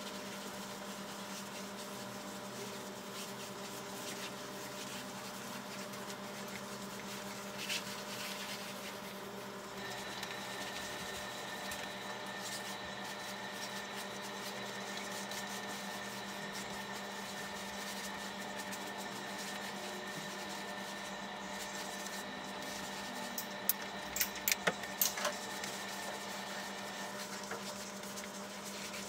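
Steady machine hum with several held tones, a higher tone joining about ten seconds in. A quick run of faint clicks about three-quarters of the way through.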